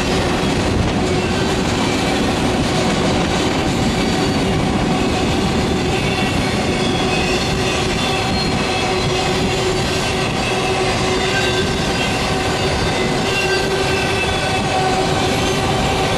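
Freight train of autorack cars rolling past at speed: a continuous steel-wheel-on-rail rumble with steady high tones running through it.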